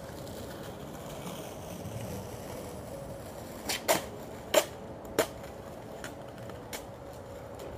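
Skateboard on concrete paving: three sharp clacks a little over half a second apart around the middle, then a couple of fainter ticks as the board rolls away.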